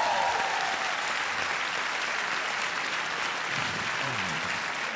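Large seated audience applauding steadily.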